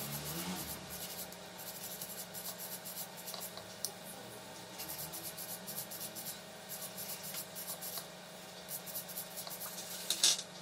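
Small brass wire brush scrubbing the rusty metal contact of a plastic instrument-panel bulb holder, in many quick scratchy strokes. Near the end there are a few light clicks as the plastic holder is set down on the table.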